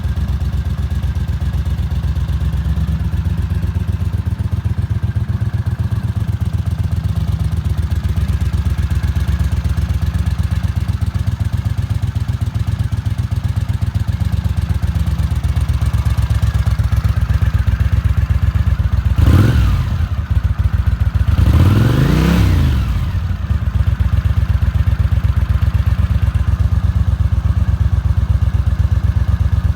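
Honda CX500 scrambler's V-twin engine idling steadily. About two-thirds of the way through it is revved twice, first a quick blip and then a longer rev that rises and falls, before it settles back to idle.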